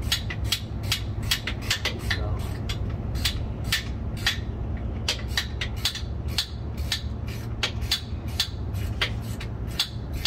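Sharp metallic clicks from hand tools working on the transmission's mounting bolts, a few a second at uneven spacing, over a steady low hum.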